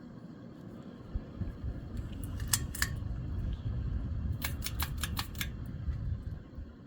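Several sharp clicks in two clusters, a couple about two and a half seconds in and a quicker run of about five near the middle, over a low rumble that starts about a second in.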